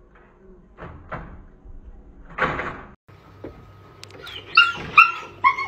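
A pitbull whining in short, high-pitched, wavering cries near the end. About halfway through there is a brief noisy scrape like a door sliding.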